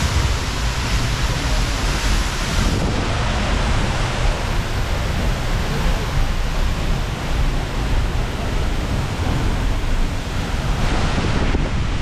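Loud, steady rushing of a waterfall, with wind buffeting the microphone.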